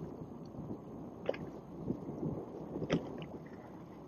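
Water sloshing against a small boat's hull, a steady uneven wash of sound. Two brief sharp clicks come at about one and three seconds in.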